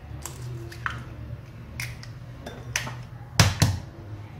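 Eggs being cracked into a plastic mixing bowl: a few light clicks of shell, then two sharp taps of an egg against the bowl about three and a half seconds in, over a low steady hum.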